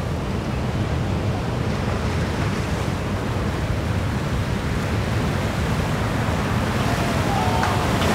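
Ocean surf rushing and breaking, a steady noisy wash with a heavy low rumble, with wind on the microphone.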